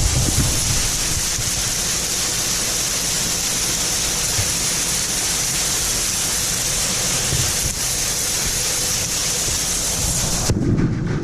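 John Deere 9500 combine running steadily: a loud, even rushing noise with a faint steady hum underneath. It cuts off abruptly near the end.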